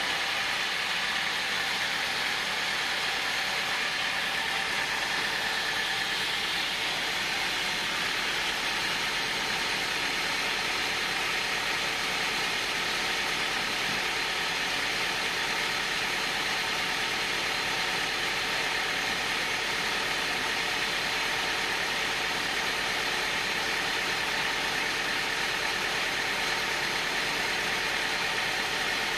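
Sawmill band saw running steadily, a continuous mechanical whir with a couple of steady tones and no breaks or changes in loudness.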